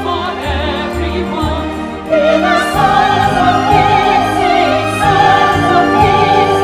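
Music: held sung notes with a wavering vibrato over sustained instrumental backing and a low bass, growing fuller and louder about two seconds in.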